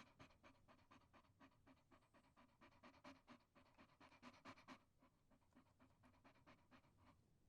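Rapid rhythmic panting, about five breaths a second, growing weaker and sparser over the last couple of seconds.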